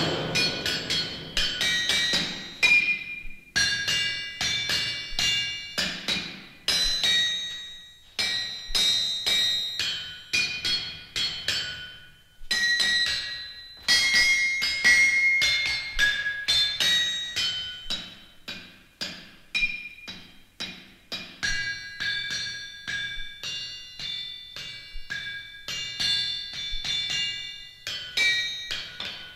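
Hammers striking anvils, several blows a second in an uneven rhythm, each blow ringing on with a few clear metallic tones.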